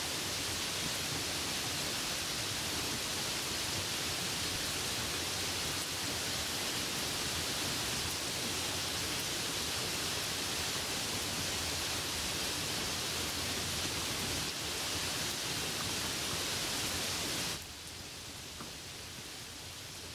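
Steady heavy rainfall, a dense even hiss, that cuts abruptly to softer, quieter rain about three seconds before the end.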